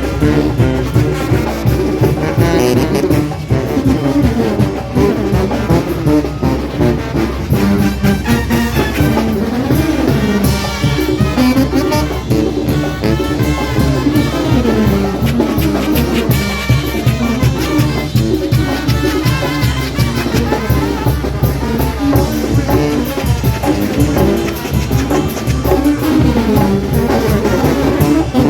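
Brass band playing a lively dance tune from a merengue medley: trumpets and trombones carry the melody over a steady drum beat.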